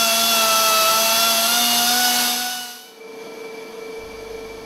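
Hand-held rotary grinder running steadily against the steel top edge of a MAN B&W two-stroke engine's cylinder liner, grinding off the wear ridge, with a high whine over a hiss. It fades out about three seconds in, leaving a quieter steady hum with a faint tone.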